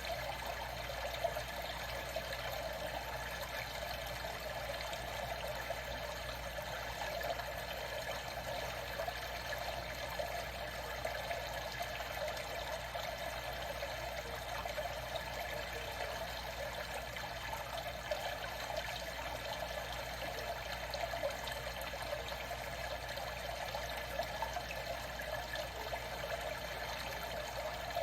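Water trickling and flowing steadily, an even rushing with no pauses or paddle strokes.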